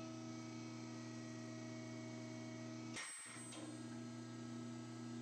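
Steady electric hum of the FR800C rebar bender-cutter's motor running while it shears a 1-inch Grade 60 rebar. About three seconds in there is a short click, and the hum briefly drops out before resuming.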